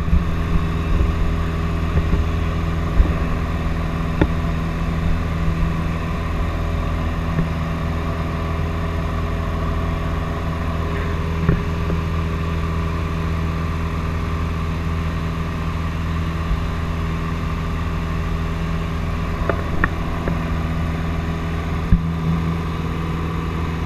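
Light aircraft's engine and propeller droning steadily in cruise, heard from inside the cabin.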